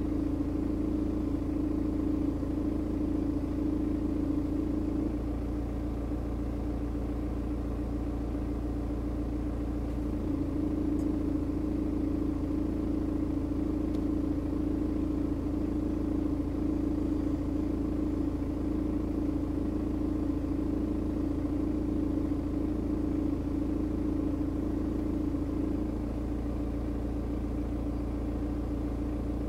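BMW N47 four-cylinder diesel idling warm with a light sawing, grinding vibration that pulses a little more than once a second. The vibration goes away when the revs are lifted slightly, about five seconds in and again near the end, and comes back when the engine drops to idle in between. The owner's view is that it is an odd noise heard only at warm idle, which also stops when the air conditioning is switched on.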